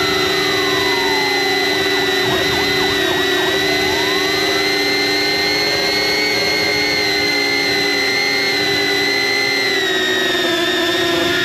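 DJI Avata FPV drone's motors and propellers whining steadily, picked up close by a camera mounted on the drone itself, a drone of several steady tones at once.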